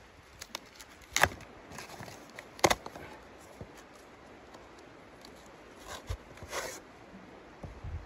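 Cardboard being torn by hand: two sharp rips about a second and a half apart, then softer tearing and rustling near the end.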